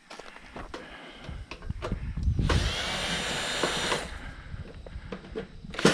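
Cordless drill-driver backing screws out of a kitchen range's sheet-metal panels: a steady whine of about a second and a half starting about two and a half seconds in, and again near the end, with clicks and knocks of the tool and parts being handled in between.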